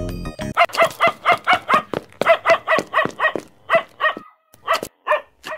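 A dog barking in quick runs of short barks, about four or five a second, with a brief pause about two seconds in and two last barks near the end. Background music stops about half a second in.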